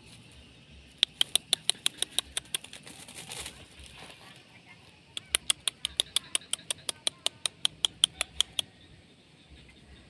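Two runs of rapid, sharp tongue clicks close to the microphone, about seven a second, the sort made to call a dog. The first run is short and starts about a second in; the longer second run starts about halfway through and fades out at its end.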